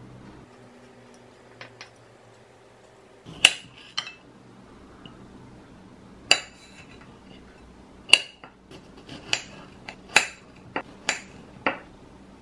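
A knife blade clinking against a ceramic plate while a plum is sliced on it: about nine sharp, separate clinks at uneven intervals, starting about three seconds in.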